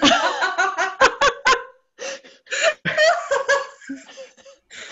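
Two women laughing heartily together over a video call, in a run of quick bursts of laughter.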